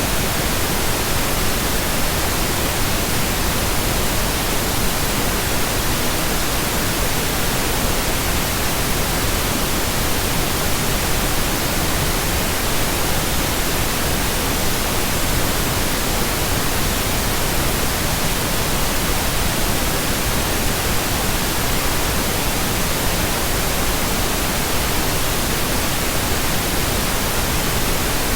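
Steady generated pink noise: an even, unbroken hiss across the whole range, holding the same level throughout.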